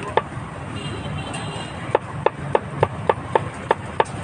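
Cleaver chopping meat on a block. One stroke comes just after the start, then a pause of over a second, then a steady run of eight strokes at about three and a half a second.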